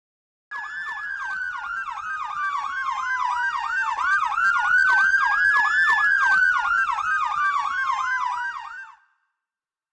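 Fire engine's dual sirens: a Federal PowerCall electronic siren in a fast yelp over a Federal Q2B mechanical siren that winds down, spins back up about four seconds in, then winds down again. Both start about half a second in and stop near the end.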